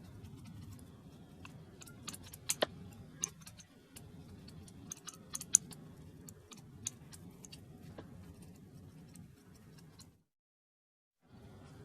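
Scattered light clicks and taps of hands working with craft materials, over a low steady hum. The sound cuts out completely for about a second near the end.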